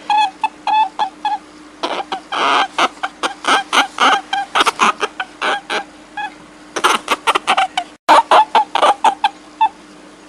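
An animal giving many short, pitched calls in quick, irregular runs, with a faint steady hum underneath.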